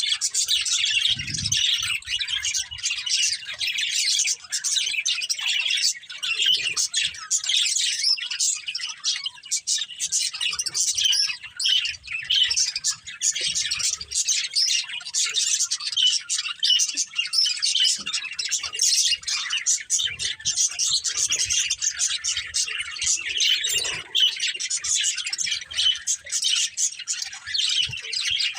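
Several budgerigars chirping together without a break: many quick, high chirps overlapping one another.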